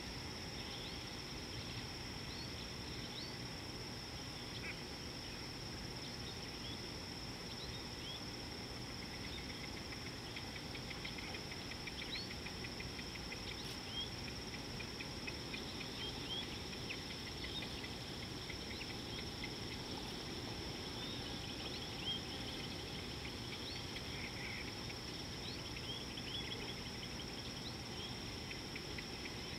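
Insects drone steadily on one high pitch while birds chirp and whistle in short calls throughout, over a low background rumble.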